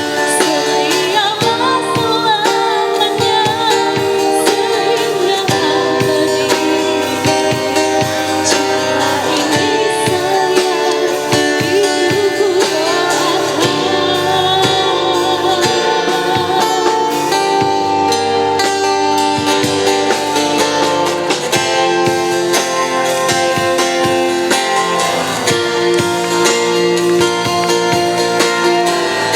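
A woman singing a song with guitar accompaniment, holding long notes with vibrato.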